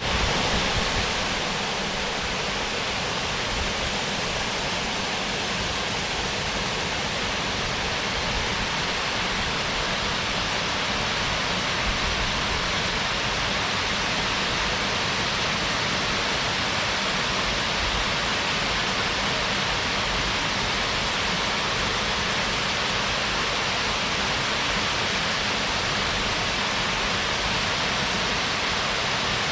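Waterfall: falling water making a steady, unbroken rushing roar.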